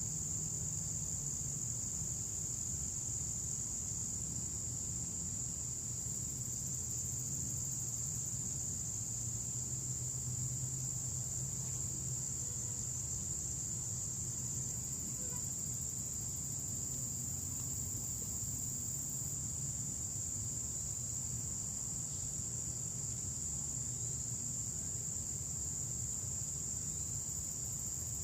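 Steady chorus of insects, a continuous high-pitched trill that does not change, over a faint low rumble of outdoor background.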